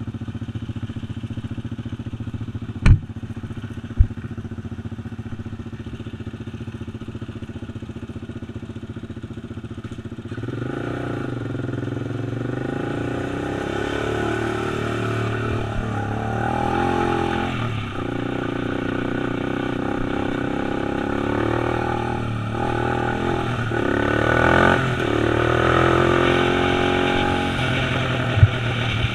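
Quad (ATV) engine idling, with two sharp knocks about three and four seconds in. About ten seconds in it pulls away and runs louder, its pitch rising and falling repeatedly with the throttle and gear changes while riding.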